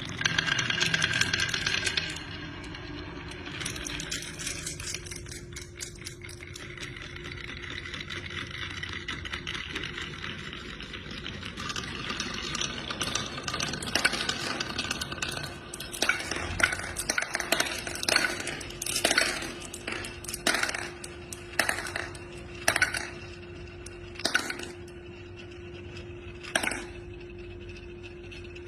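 Glass marbles streaming and clattering against each other in a continuous rattle. In the second half this gives way to a series of separate sharp clinks as single marbles knock together.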